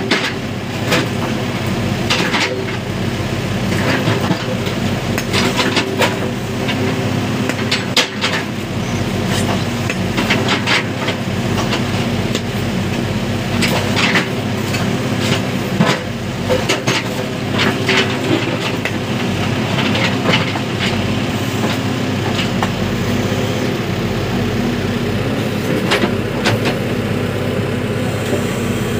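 Backhoe loader's diesel engine running steadily under digging load while the bucket works into broken rock, with repeated knocks and clatters of stone against the steel bucket.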